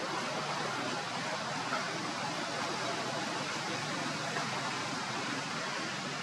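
Steady, even background hiss with no distinct calls or knocks.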